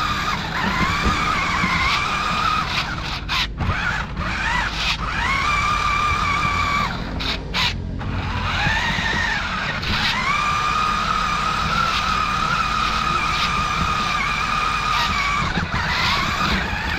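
Toy RC monster truck's small electric motor and gears whining at a steady pitch as it drives, the whine rising each time it pulls away and stopping briefly a few times, over a low rumble from the ride across grass and dirt.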